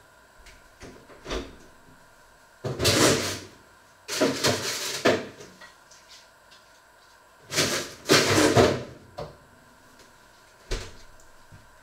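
Kitchen clatter from someone handling things off to the side: three loud, rustling clatters of about a second each, around three, four and eight seconds in, with lighter clicks before them and a single knock near the end.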